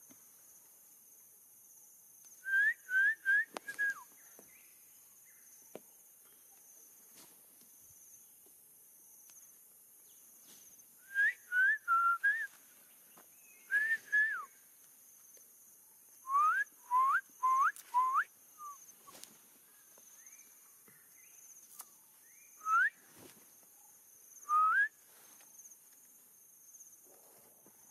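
Short rising whistled notes in quick runs of three or four, repeated several times, over a steady faint high insect drone.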